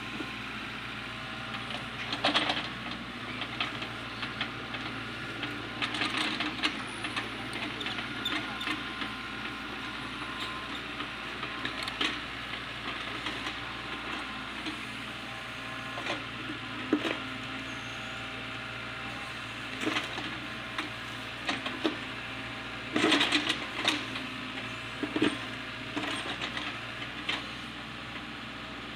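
LOVOL FR80E2 mini excavator's engine running steadily while it pushes over a teak tree, with irregular sharp cracks and snaps of wood and roots giving way, the loudest cluster about 23 seconds in.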